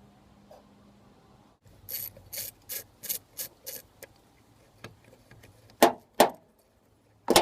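Ratchet wrench clicking in a run of about six quick even clicks as a bolt is backed out of a jet pump, followed by three louder sharp metal clinks near the end.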